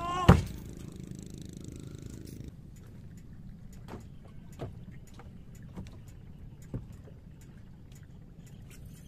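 A brief loud sound right at the start as a lure is cast, then a few scattered hollow knocks of footsteps on the planks of a wooden boat over a low steady background.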